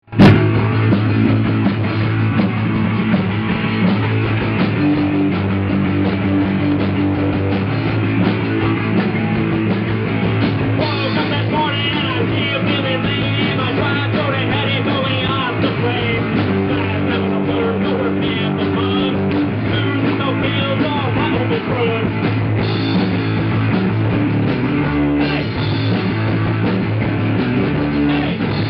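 A rock band playing live: bass guitar, electric guitar and drum kit, with a voice singing over it from about ten seconds in. Loud and poorly recorded.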